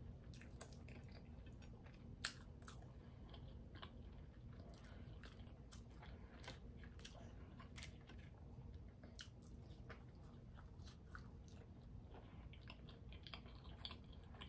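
Faint chewing of McDonald's fries and chicken nuggets close to the microphone, with scattered small clicks and crackles, one louder about two seconds in.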